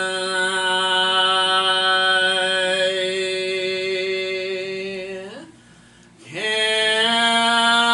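A voice holding a long sung note in a gospel song. Just after five seconds in it slides up and breaks off, and after a short gap it slides back into another long held note.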